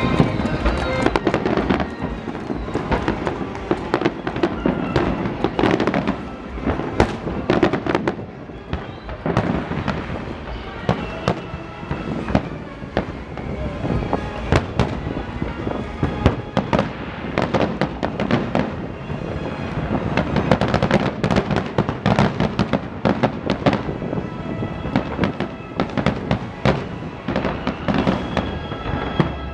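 Aerial fireworks display: a rapid, irregular string of sharp bangs and crackles, several a second, going on without a break.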